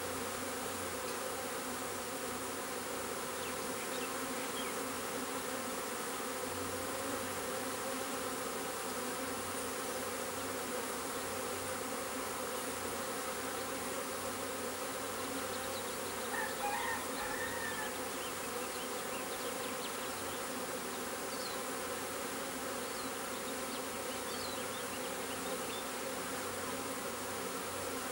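Steady buzzing hum of a honeybee swarm, many bees flying around and crowding the entrance of a swarm trap as the swarm moves in.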